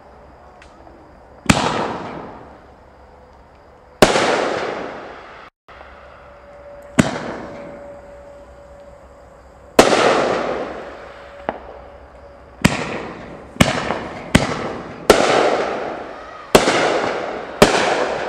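Phantom Fireworks Gold Brocade Classic aerial firework going off: about ten sharp bursts, each followed by a long fading tail. The bursts come a few seconds apart at first and about once a second near the end.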